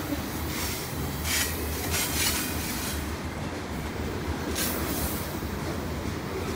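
Freight train tank cars rolling past with a steady rumble of steel wheels on rail. Brief sharp wheel-on-rail clacks come about a second and a half in, around two seconds in and again about four and a half seconds in.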